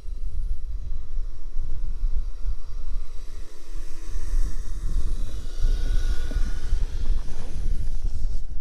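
Wind buffeting the microphone with a heavy low rumble, over which the Kyosho Blizzard RC snowcat's small electric motor whines faintly, rising and falling in pitch as it drives through snow, most clearly past the middle.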